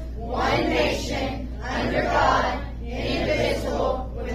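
A roomful of voices, children and adults, reciting together in unison in a chant-like rhythm, as when a group says a pledge aloud.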